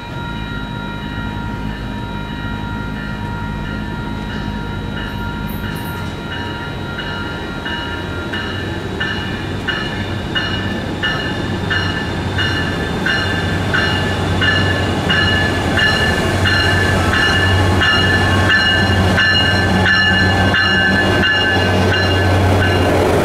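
A diesel-hauled passenger train approaching, its engine growing steadily louder, with a bell ringing in even strokes about one and a half times a second that grow louder as it nears.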